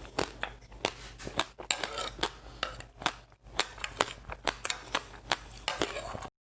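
Close-miked crunching of seeds being chewed: a quick, irregular run of sharp crisp crackles, several a second, cutting off abruptly near the end.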